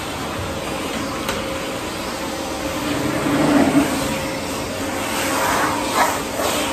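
Canister vacuum cleaner running steadily with a constant motor hum as its floor nozzle is pushed over carpet, with a short knock about six seconds in.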